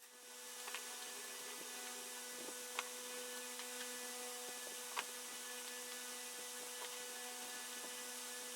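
Steady electrical hum and hiss of a workbench's room noise, with a few small sharp clicks of parts or tools being handled, the sharpest about three and five seconds in.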